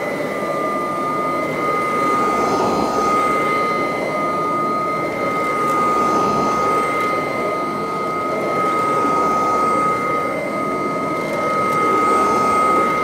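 Kirby Classic 1CR upright vacuum running with a steady high-pitched whine, pushed back and forth over a rug. The rush of air swells and fades every few seconds with each stroke.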